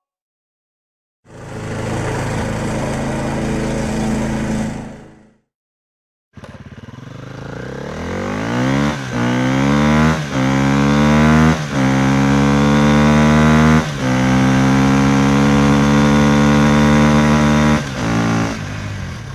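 Car engine sound effect: a few seconds of the engine running, a short gap, then the engine accelerating hard. Its pitch climbs and drops back at each of four gear changes, holds high, then eases off and fades out.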